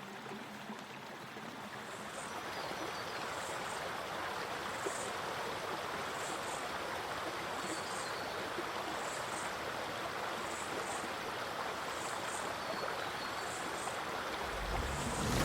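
Stream water flowing in a steady rush of noise that fades up over the first few seconds. Faint short high chirps recur about once a second. A low rumble comes in near the end.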